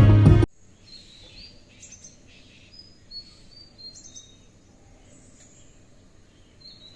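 Small birds chirping and whistling, short high calls scattered through a faint background. Music with drums stops abruptly about half a second in.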